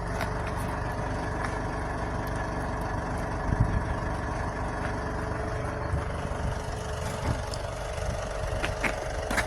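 A truck engine running steadily at a constant speed, with a few short knocks: one a little over a third of the way in, one around the middle and one at the very end.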